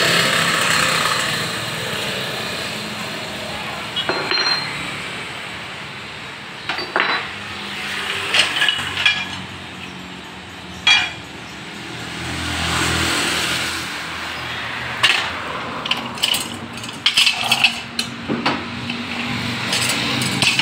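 Metal tools and parts clinking and knocking now and then, sparse at first and more frequent in the last few seconds, over the rush of passing traffic that swells at the start and again about twelve seconds in.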